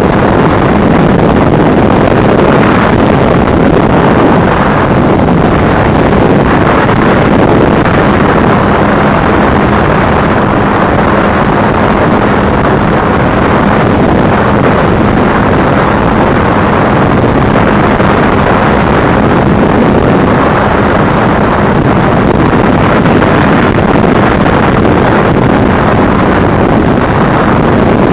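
Loud, steady rushing wind and motor noise with a faint constant hum, as picked up by the onboard microphone of a remote-controlled FPV craft in motion.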